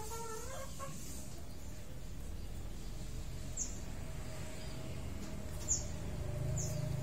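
Female green junglefowl giving a short clucking call about a second long near the start. A few brief, high, falling chirps follow later.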